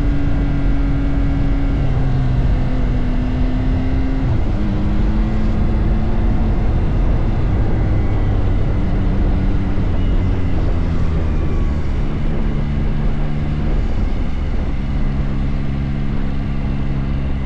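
Yamaha R9's three-cylinder engine running steadily and loudly, its pitch stepping up and down every second or two as the revs change.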